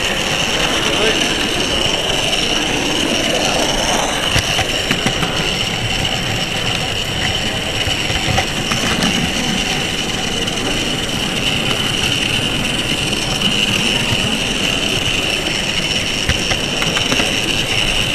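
Model train running along the layout with the camera riding on it: a steady high whine and rolling rumble, with a few scattered clicks, against indistinct background voices.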